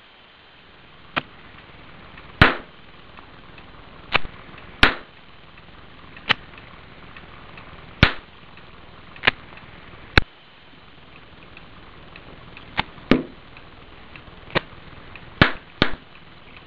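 Small bubbles of oxyhydrogen (HHO) gas from a water electrolysis cell igniting as a dozen or so sharp pops, coming at irregular intervals a second or two apart.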